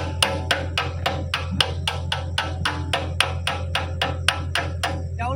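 Rapid, evenly paced hammer blows, about five a second, as when knocking a pin during an excavator bucket change, over a steady low hum.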